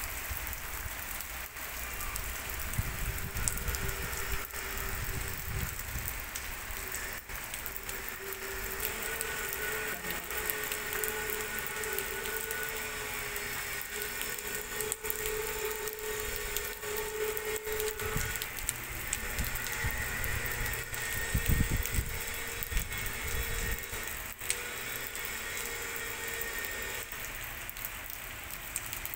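Heavy rain falling on a wet street and parked cars, a steady hiss. Through much of the middle a wavering motor-like hum runs under the rain, and there are a few low rumbles.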